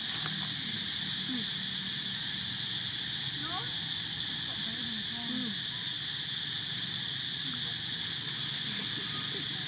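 Steady, high-pitched drone of an insect chorus, with a few faint, short sliding calls underneath.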